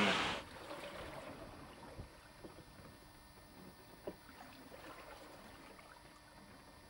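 Faint water lapping and trickling against the hull of a sailboat lying becalmed on a glassy sea, with a few soft knocks about two and four seconds in.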